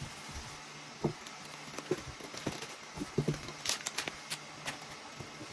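Packaging being handled: foam packing inserts and a plastic-wrapped unit shifted in a cardboard box, with scattered soft knocks. A plastic bag crinkles briefly about four seconds in.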